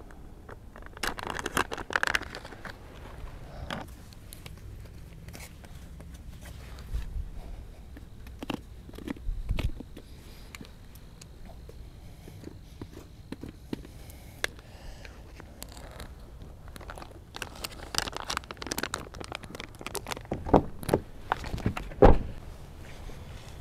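Irregular rustling, scraping and crunching with scattered sharp knocks, from a person moving about with clothing and gear. The loudest knocks come near the end.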